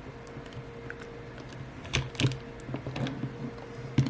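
Small scattered clicks and taps of tools against an iPhone 8 as its battery is pried loose from its adhesive, with sharper clicks about two seconds in and near the end.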